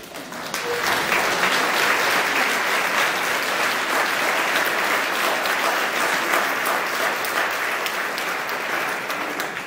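Concert-hall audience applauding, a dense patter of many hands clapping that builds up over the first second, holds steady, and dies away near the end.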